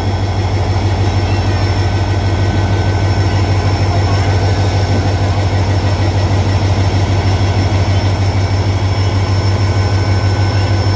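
Diesel locomotive engine running steadily close by: a loud, even low rumble with a fast pulse and a faint thin whine above it.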